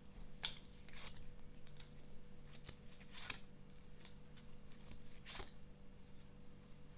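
Tarot cards being handled and laid out: a few faint, separate rustles and soft card slaps over a steady low hum.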